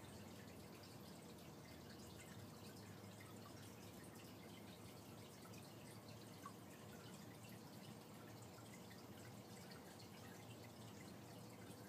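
Near silence: faint, steady trickling of aquarium water, with a low steady hum underneath.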